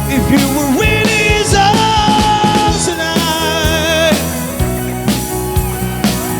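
Rock band playing live: drums keep a steady beat under sustained lead notes, some held with vibrato, over the bass and chords.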